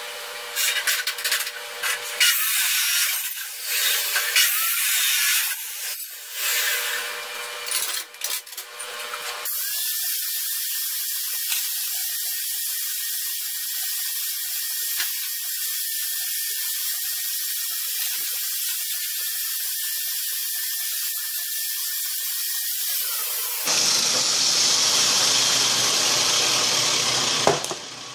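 Steel all-thread rod being cut and dressed with abrasive power tools. About nine seconds of rough, broken grinding noise with clatter comes first. Then a steady hiss with a faint high whine runs for about fourteen seconds and stops abruptly, followed by a different, broader hiss with a low hum.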